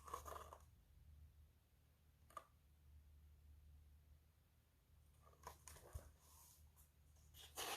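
Near silence: room tone with a faint steady low hum and a few faint clicks.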